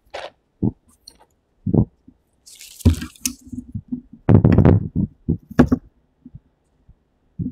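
Footsteps on wet pavement, thudding unevenly, mixed with handling noise on the hand-held microphone: a brief hiss about three seconds in and a louder rumbling rub around four and a half seconds.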